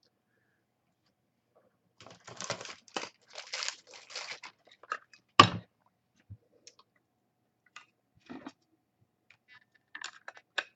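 Rustling and crinkling of trading-card packaging being handled, starting about two seconds in, with one sharp click a few seconds later and a few faint clicks after.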